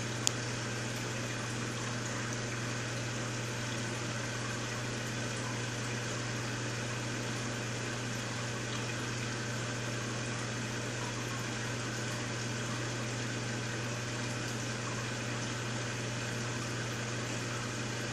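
Aquarium pump running steadily: a low hum under an even hiss of moving water, with one sharp click just after the start.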